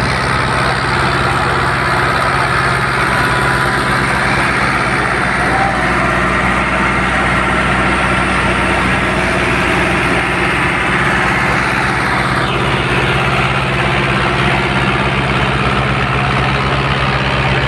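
Wheat thresher driven by a Fiat 640 diesel tractor, running steadily under load. The engine's low steady hum sits under the dense rushing of the thresher's drum and blower as straw is fed in.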